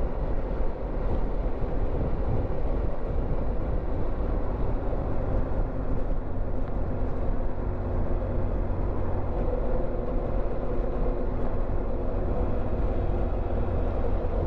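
Motorcycle riding at a steady pace: the engine drones evenly over a continuous low rumble of wind and road noise.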